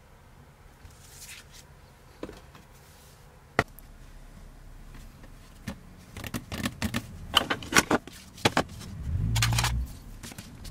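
Hands handling a sheet of vinyl wrap film on a cutting mat: a few isolated taps, then a run of crackling clicks as the film is pressed and moved, and a louder rubbing slide near the end.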